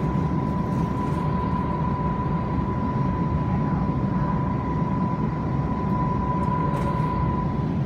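Cabin noise of a Beijing S1 line maglev train running, a steady low rumble with a steady whine held on one pitch.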